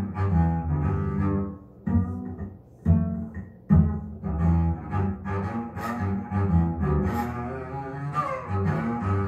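Recorded double bass playing a jazz line in short phrases, with brief pauses about two and three and a half seconds in, played back over hi-fi loudspeakers driven by a Fezz Audio Silver Luna amplifier.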